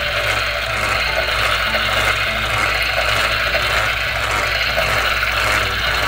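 Small electric motor of a battery-powered toy grill running with a steady whir and hum.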